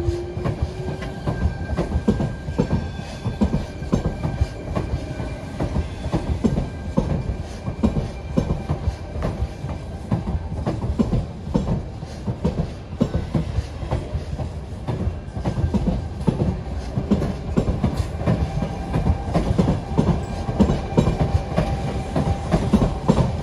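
Sydney Trains Tangara electric multiple unit running past, its wheels clacking over the rail joints amid a steady low rumble. A short rising whine comes at the very start.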